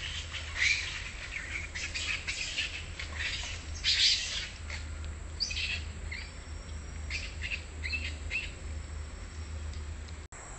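Birds chirping in a string of short, high calls, loudest about a second in and again about four seconds in.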